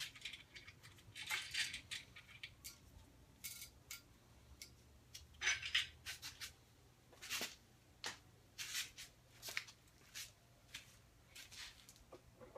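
Irregular light metallic clicks and clinks of main bearing caps and their bolts being handled and lifted off a Ford 302 V8 block.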